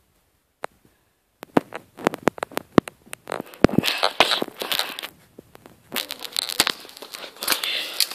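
Handling noise from a phone being moved about: after a short quiet, scattered sharp clicks, then dense irregular crackling and rustling from about three and a half seconds in.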